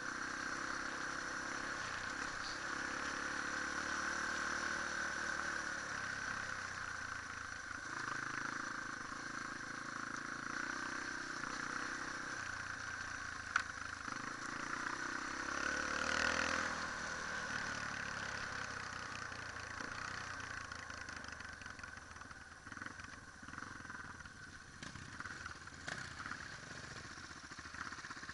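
Off-road motorcycle engine running under way, its pitch stepping up and down with throttle and gear changes, with one sharp knock about halfway through. It turns quieter and uneven near the end as the bike slows to a stop.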